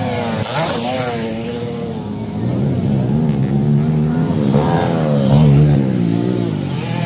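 Dirt bike engines revving, their pitch rising and falling again and again as the riders throttle on and off over the jumps. Several bikes overlap, loudest about five seconds in.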